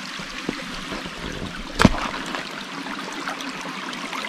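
Small stream running: a steady rush and trickle of flowing water, with one brief sharper sound about two seconds in.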